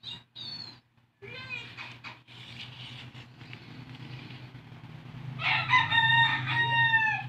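A rooster crowing: one long, loud call in the last couple of seconds that dips slightly in pitch at its end, after a few shorter calls in the first two seconds.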